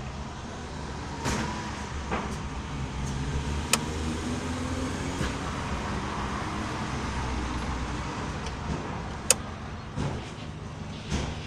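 Hyundai H100 van's engine running steadily, a low hum, with several sharp clicks and knocks scattered through.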